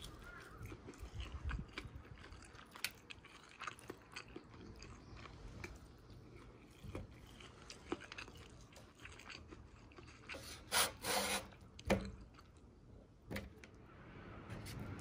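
Close-up eating sounds of a fried egg: chewing, and wooden chopsticks scraping and tapping on a paper plate in scattered small clicks. About eleven seconds in comes a louder scraping rustle under a second long, then two sharp clicks.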